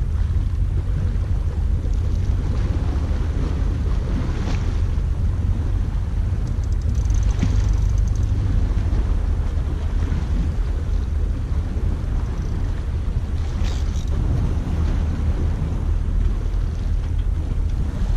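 Wind buffeting the microphone as a steady low rumble over sea noise, with a few faint brief clicks along the way.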